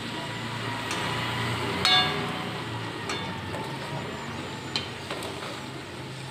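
Luchi frying in hot oil in a metal karahi: a steady sizzle, with several metal clinks of a slotted spoon against the pan as the bread is pressed and turned, the loudest about two seconds in.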